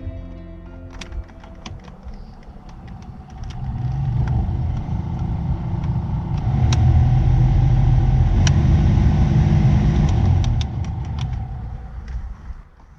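Audi Coupe heater blower fan being switched through its speeds, with clicks of the switch. It runs louder in two steps, holds at its top speed, then drops back down. It is working on all settings with the old resistor and a new fuse fitted.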